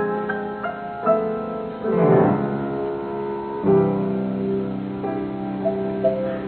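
Solo piano playing single melody notes over held chords, with a quick run of notes about two seconds in and a low chord struck about halfway through.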